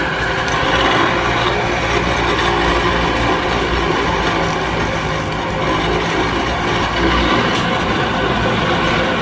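Excavator's diesel engine running steadily while its brush-cutter attachment chops through weeds and brush, a continuous dense clattering over the engine's low hum.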